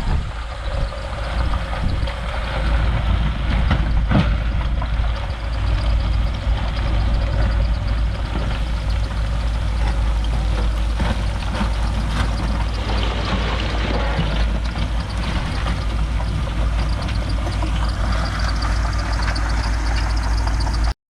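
Heavy diesel earthmoving machinery running steadily, a strong low engine rumble with scattered clanks and rattles. The sound cuts off abruptly at the very end.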